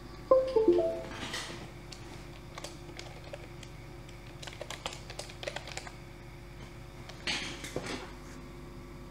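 Scattered sharp clicks like keys and buttons being pressed on a laptop, after a quick falling run of short electronic tones, with a brief rustle near the end over a steady electrical hum.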